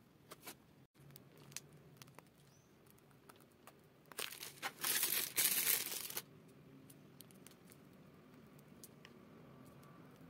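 Plastic piping bag crinkling and rustling in the hands for about two seconds in the middle, the loudest sound here, among a few light clicks and handling noises.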